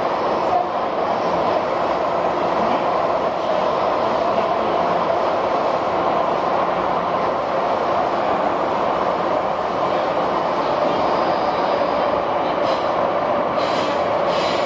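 Hong Kong MTR metro train running, heard inside the passenger car: a steady rush of wheel and rail noise, with a few faint clicks near the end.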